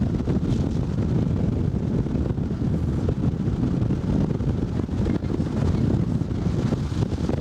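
Steady low rumble of a car driving, heard from inside the cabin, with wind buffeting the microphone.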